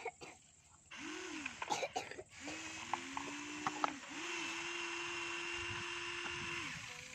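Electric gear motors of a HUINA remote-control toy excavator whining as its boom and bucket move: a few short whines that ramp up and down, with some sharp clicks, then one longer steady whine from about four seconds in that stops shortly before the end.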